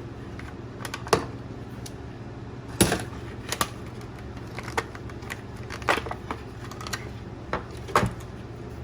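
Irregular clicks and taps from a flashlight box and its contents being opened and handled by hand, over a steady low hum.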